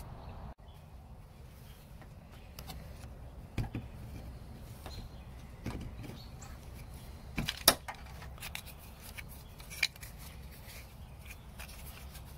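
Plastic rear wiper arm and its cap being handled and worked off the spindle: scattered small clicks and knocks, the loudest about three-quarters of the way in, over a low steady background rumble.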